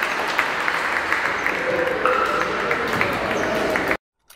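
Crowd noise and voices in an indoor basketball gym during play, with short sharp sounds from the court, cutting off suddenly near the end.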